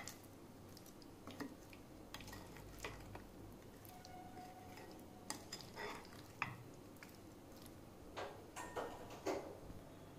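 Wooden spoon mixing spice-coated taro pieces in a glass bowl: irregular soft taps and clicks of the spoon against the glass, with the wet squish of the pieces being turned.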